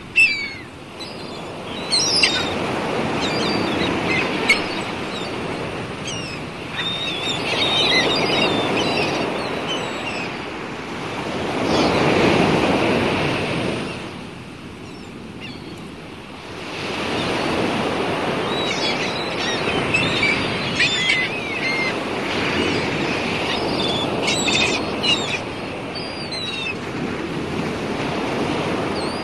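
Sea waves surging and washing, swelling and falling away every few seconds, with several bursts of short, high bird calls over the top.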